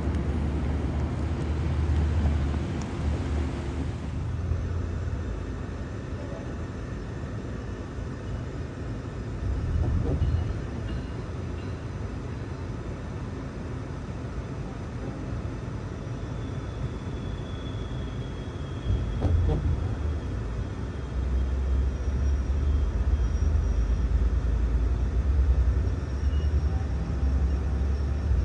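Steady low rumble of a Sounder commuter train moving slowly along the platform, heard from inside a car. The rumble grows louder and fuller about two-thirds of the way through.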